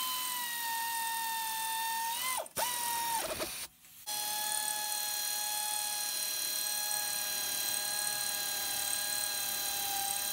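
Electric motor of a power tool whining at steady speed: a run of about two and a half seconds, a short blip, then a long steady run that winds down in pitch near the end. No hammering clicks, so the tool is spinning freely or running in bolts rather than impacting.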